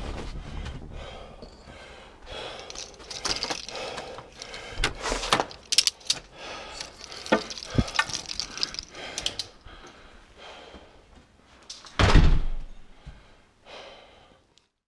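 A house's front door being opened and shut: a run of sharp clicks and rattles from the handle and latch, then one loud thud about twelve seconds in as the door closes.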